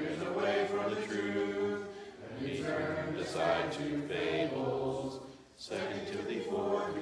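A class of children reciting a memorized Bible passage aloud in unison, a chant-like group recitation in phrases with short breaks about two seconds in and again near the end.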